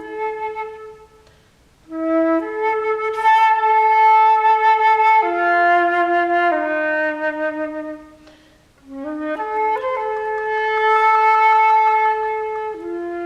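Solo flute playing slow, long held notes in its low register, one melodic line with no accompaniment. The playing breaks off twice, at about a second and a half and again near eight seconds, before each new phrase.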